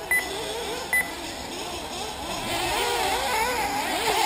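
Several 1/8-scale nitro RC buggy engines revving, their high buzzing pitch sweeping up and down and growing louder after about two seconds. Two short high beeps sound in the first second.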